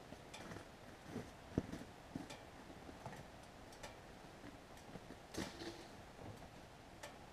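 Faint scattered clicks and soft knocks over a quiet background hiss, with one sharper click about one and a half seconds in.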